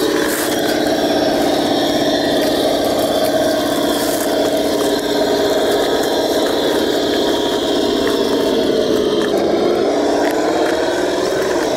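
Homemade six-wheel-drive radio-controlled truck's electric drive running with a steady whine. Near the end the pitch dips and comes back up as it slows and speeds up again.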